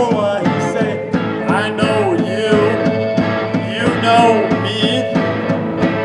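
A small rock band playing live, with drums, electric and acoustic guitars and keyboard, and a man singing a gliding melody into a microphone over a steady beat.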